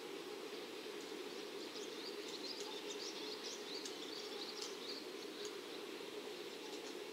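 Faint, steady background rumble of outdoor station ambience, with a cluster of short, high chirps from about a second and a half in until about five seconds in.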